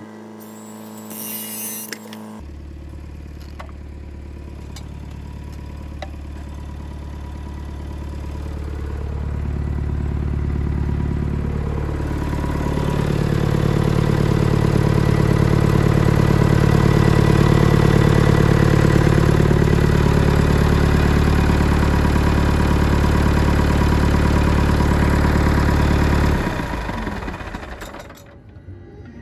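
Backhoe's Nuffield tractor engine running steadily, revving up over several seconds and then holding. Near the end it cuts off and dies away.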